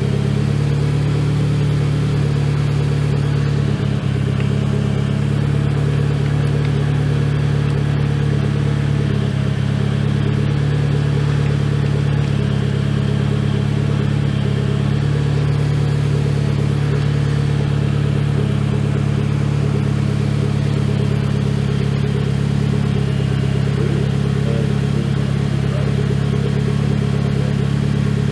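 Mitsubishi Lancer Evolution X's turbocharged 2.0-litre four-cylinder engine idling steadily.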